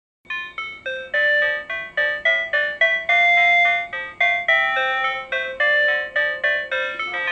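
PATLITE electronic annunciator on a Tobu Railway platform playing its signal-clear melody, a quick run of clean electronic notes starting about a third of a second in. It tells the crew of a one-man train that the departure signal has cleared.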